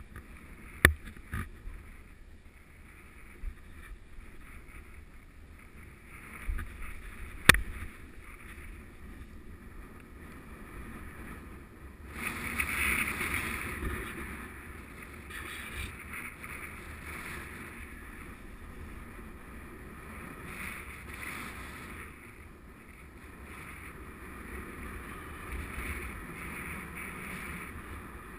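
Wind buffeting the camera microphone in a steady rush with low rumble, swelling louder for a few seconds about twelve seconds in. Two sharp knocks on the camera or gear come in the first eight seconds.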